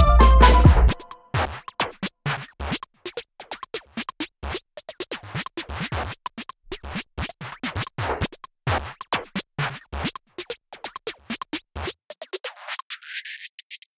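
Background music cuts off about a second in. It gives way to irregular clicks and scrapes of a metal spoon stirring chopped onions and potatoes in an aluminium pot.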